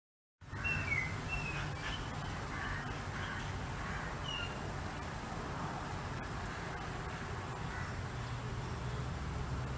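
Outdoor nature ambience: a few short, slurred bird calls in the first second or two and once more about four seconds in, over a steady low hum.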